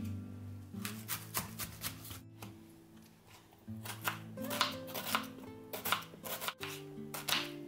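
Knife slicing through a raw onion on a bamboo cutting board: a series of irregular crisp cutting strokes, over background music.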